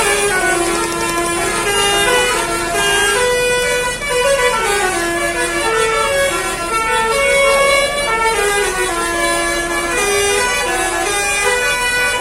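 Bus 'telolet' Basuri musical air horn playing a tune: held notes stepping up and down, one after another without a break.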